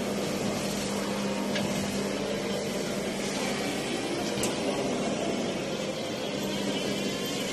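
Steady machine hum: a constant low tone over an even hiss, with a few faint ticks.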